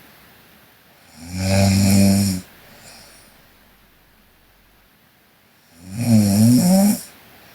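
A sleeping woman snoring: two pitched snores about four seconds apart, each lasting about a second. The second snore wavers up and down in pitch.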